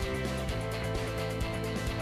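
Background music with held chords. Under it, the fine crackle of a wire-feed welder laying tack welds on steel plate.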